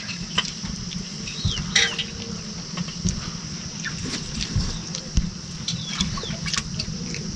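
Chickens clucking and chirping in short, scattered calls, with occasional clicks and knocks.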